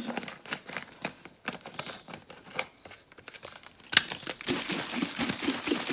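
Clear plastic spray bottle being handled and its trigger head screwed on: scattered small plastic clicks and rustles, one sharp click about four seconds in, then a quicker run of ticking near the end.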